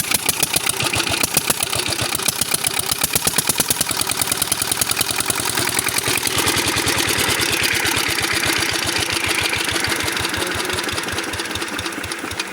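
16 HP Peter Dixon diesel engine running steadily with an even, rapid beat. It is running freshly repaired, after its oil pump was primed with oil and refitted.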